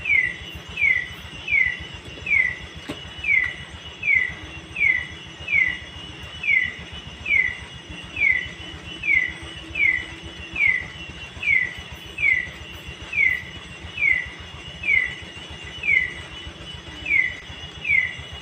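An animal repeating a short, falling chirp about three times every two seconds, over a faint steady high hum of insects.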